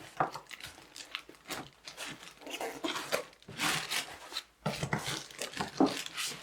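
Packaging being handled during an unboxing: cardboard and plastic wrapping rustling and crinkling in irregular bursts as hands dig through the box, loudest in the middle.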